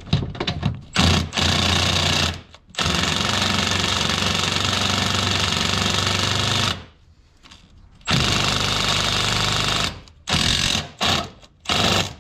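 Impact wrench hammering in several runs, the longest about four seconds, with short bursts near the start and end, as it spins on and tightens the bolt of a lower suspension ball joint.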